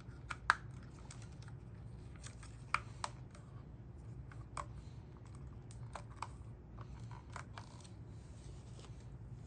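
Small plastic clicks and taps of Dyson V10 vacuum parts being handled and fitted together, irregular, with a couple of sharper clicks about half a second in and around three seconds in. A steady low hum sits underneath.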